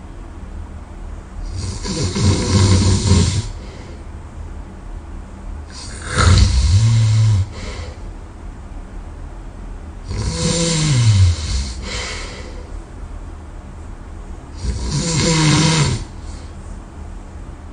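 A sleeping person snoring loudly: four heavy snores about every four seconds, some dropping in pitch as they go, with quieter breathing between.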